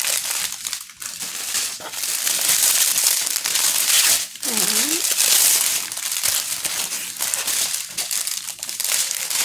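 Small plastic bags of diamond-painting drills crinkling and rattling as they are handled and sorted, a continuous crackly rustle.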